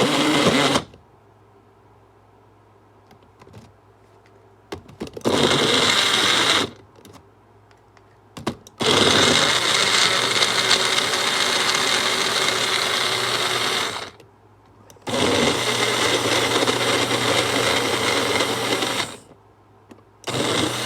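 Blender motor running in pulsed bursts with a high whine: a short first burst and a second of about a second and a half, then longer runs of about five and four seconds, and a last burst starting near the end, with brief pauses and a few clicks in between.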